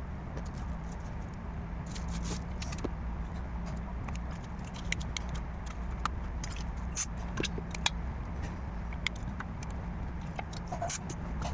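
Small tools and phone parts being handled on a repair bench: scattered light clicks and taps, a few sharper ones near the middle, over a steady low hum.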